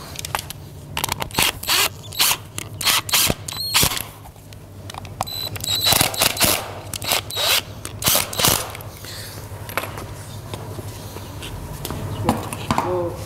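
Cordless drill driving set screws through a wooden hoof shoe into the hoof wall, in a run of short bursts over the first two-thirds, then stopping.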